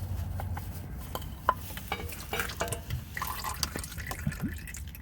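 Engine oil dripping and trickling into a catch pan as a spin-on oil filter is unscrewed by hand, with irregular drips and small clicks.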